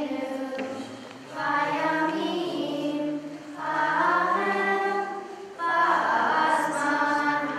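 A group of schoolchildren singing a Hanukkah song together in unison, in long sung phrases with short breaks between them.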